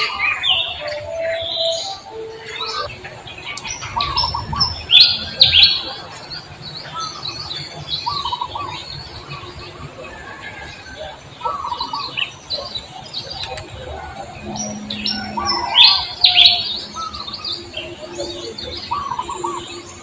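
Short, high chirping calls, many of them sliding downward, coming in clusters with a few lower calls among them. The loudest clusters come about five seconds in and again near sixteen seconds.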